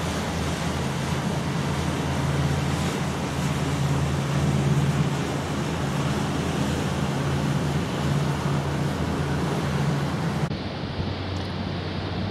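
Wind rushing over the microphone and the wash of the sea on the deck of a cruise ship under way, with a steady low drone from the ship underneath.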